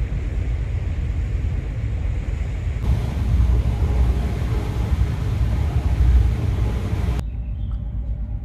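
Steady low rumble of a river cruise ship's engines under way, with a hiss that cuts in sharply about three seconds in and drops away abruptly near the end.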